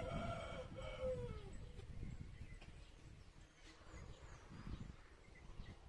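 Two drawn-out animal calls in the first second and a half, the second sliding down in pitch, followed by a few faint short chirps.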